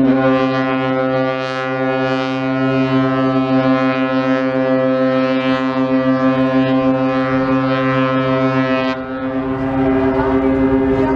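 Cruise ship's horn sounding one long, steady blast. A deeper second tone joins at the start and cuts off sharply about nine seconds in, while the higher tone carries on.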